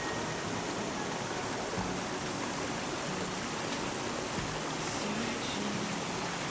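A stream of water rushing steadily.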